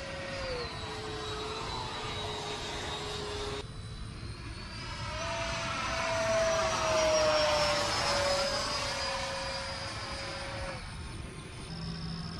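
Freewing F-86 Sabre electric ducted-fan jet with an inrunner motor whining as it flies by. The pitch drops about half a second in. The whine swells again from about five seconds in, is loudest in the middle, and slides slowly lower in pitch as it passes, fading near the end.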